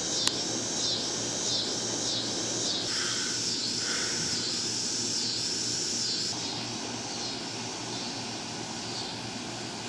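Outdoor insect chorus, a high shrill drone swelling and fading in regular pulses about every three-quarters of a second, over a steady low hum. A sharp click comes just after the start, and two short chirps come around the middle.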